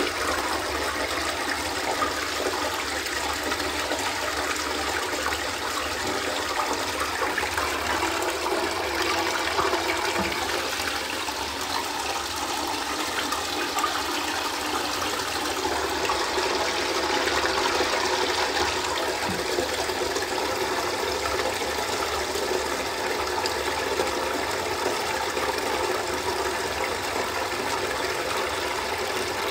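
Water running across a wet tiled floor and pouring steadily down into a square floor drain, a continuous gurgling rush.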